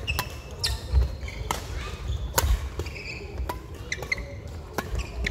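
Badminton rally: sharp, irregular cracks of rackets striking the shuttlecock, mixed with short shoe squeaks and footfalls on the court floor.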